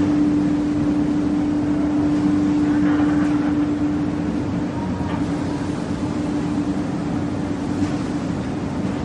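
Plywood-making machinery running in the factory: a steady mechanical drone with one constant humming pitch held throughout.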